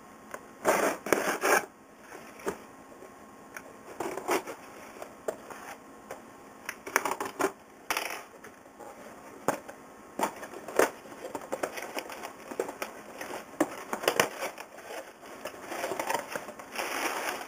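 Cardboard shipping box being handled and opened by hand: irregular scrapes, rustles and knocks of cardboard, loudest about a second in.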